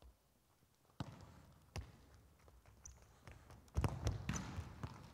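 Futsal ball kicked and bouncing on a wooden sports-hall floor: single knocks about one and two seconds in, then a louder run of kicks and bounces with hall echo near the end.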